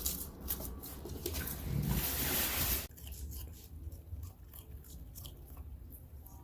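Small pet animal crunching and chewing cabbage, heard as quick crisp clicks. A louder rustling noise fills the first three seconds and cuts off suddenly.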